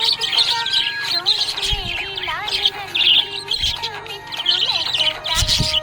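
Budgies chirping and warbling in quick, busy twitters, over music with a low beat about every two seconds.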